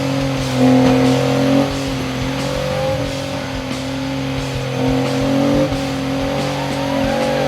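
Off-road 4x4 engine running at a held throttle while crawling the trail, its pitch stepping up briefly about a second in and shifting again near the end.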